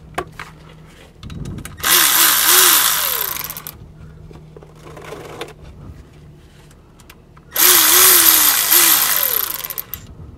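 Power ratchet spinning out the 10 mm bolts that hold the fluid strainer on an Aisin A140E transaxle's valve body. It runs twice, about two seconds each time, starting about two seconds in and again near seven and a half seconds, after a few light metal clicks at the start.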